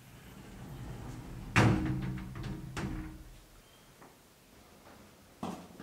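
A sharp knock about a second and a half in, followed by a few lighter clicks and knocks, and another click near the end: objects being handled at a window.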